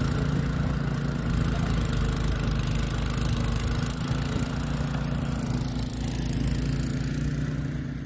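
Petrol walk-behind snow blower running steadily under load as it clears and throws snow, a continuous engine drone with a noisy rush over it.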